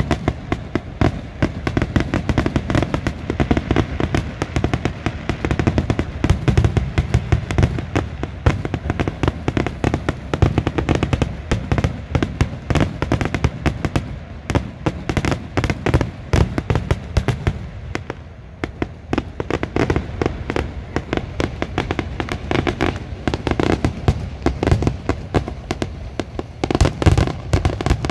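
Fireworks display: a dense, continuous barrage of bangs and crackling reports, many per second, easing briefly about two-thirds of the way through before picking up again.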